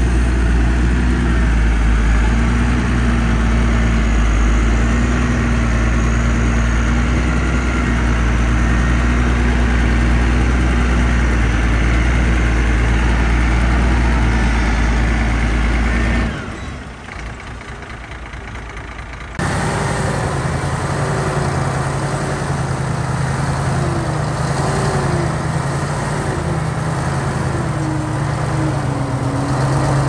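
Heavy diesel machinery engine running steadily with strong low-pitched sound. About sixteen seconds in it drops to a quieter, thinner sound, and some three seconds later a different engine sound cuts in abruptly, its pitch wavering up and down.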